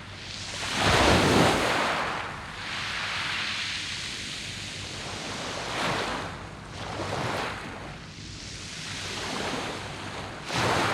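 Sea waves breaking and washing over a round-pebble beach, coming in uneven surges: the biggest about a second in, smaller ones around six and seven seconds, and another near the end.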